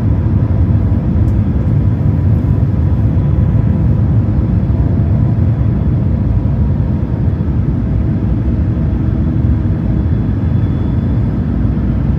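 Steady cabin noise of an Airbus A350 climbing after takeoff: its Rolls-Royce Trent XWB engines and the rushing airflow make a deep, even rush, with a faint steady whine above it.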